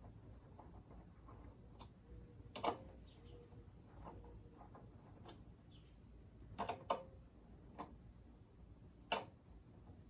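Scattered sharp clicks and knocks of tools and metal parts being handled while a lawnmower is reassembled: about five separate clinks with quiet between them, a close pair near the middle.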